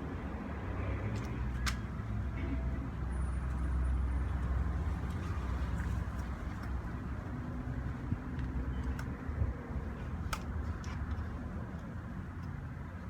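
Low, steady rumble of road traffic that swells about four seconds in, with a few sharp clicks.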